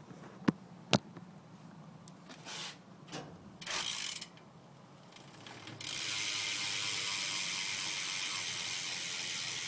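BMX rear hub with a 9-tooth driver freewheeling as the back wheel spins, its pawls ratcheting in a fast, continuous buzz. The buzz comes first as a short burst about four seconds in, then steadily from about six seconds on. Two sharp clicks come in the first second.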